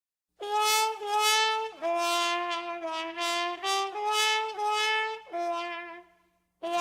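Brass band horns playing a melody in short phrases of held and stepping notes. The music starts abruptly about half a second in, breaks off briefly around six seconds, and comes back in near the end.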